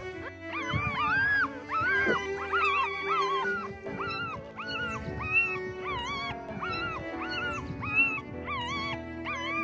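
Newborn puppies crying in short, high, rising-and-falling squeals, about two a second, over background music.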